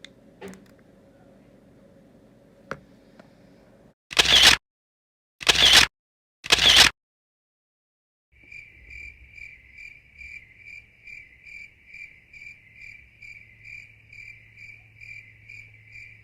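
Three loud bursts of noise, each about half a second long, come about four seconds in. A second or so later a cricket starts chirping steadily at about three chirps a second and keeps on.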